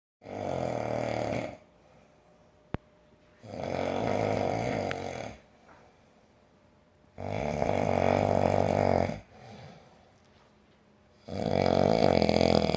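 Heavy snoring: four long, loud snores about every four seconds, each lasting about two seconds, with near-quiet gaps between. A single sharp click comes just under three seconds in.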